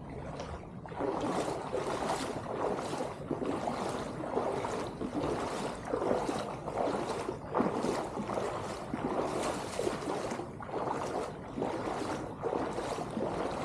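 Floodwater rushing and splashing, a dense churning noise with irregular surges.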